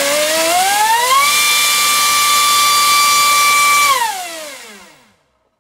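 Brushless 3900kv inrunner motor spinning an APC 4.5x4 propeller on a thrust stand, with a whine rising as the throttle opens and a loud rush of propeller wash. The motor holds full throttle for about two and a half seconds, then spools down and stops about five seconds in.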